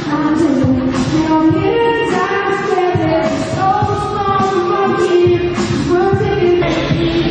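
Live pop music: a high, young male singing voice over a backing band with a steady beat.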